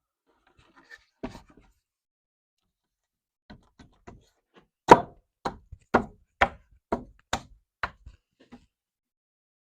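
A hammer knocking on wood, tapping a piece of the window frame into place. About a dozen knocks in all: a few light taps, then a run of about eight sharper blows roughly two a second from about halfway through, the first the loudest.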